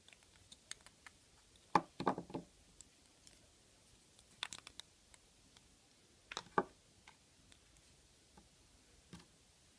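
Scattered small clicks and crackles of toys being handled, in a few short clusters about two seconds apart.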